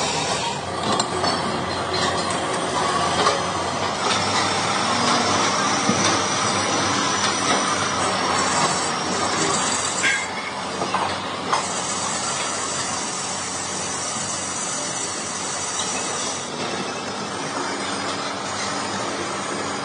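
Large engine lathe running steadily, spinning a rough differential case casting in its four-jaw chuck, with a few short clicks.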